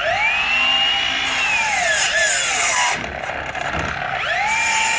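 Milwaukee M18 cordless miter saw spinning up with a rising whine, running, then winding down about two to three seconds in. It spins up again near the end.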